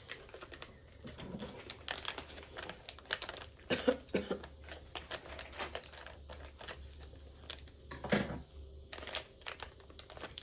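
Plastic snack wrapper of peach gummies being handled and opened: irregular small clicks and crinkles, with a few louder crackles.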